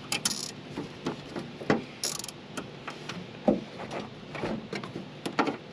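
Plastic zip tie being pulled tight, its teeth ratcheting through the lock in a run of quick clicks. There is a brief scratchy rasp about two seconds in and a louder click a little later.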